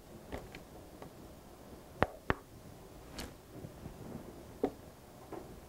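A few sharp clicks or taps in a quiet room: two close together about two seconds in and a softer one near the end, with scattered fainter ticks between.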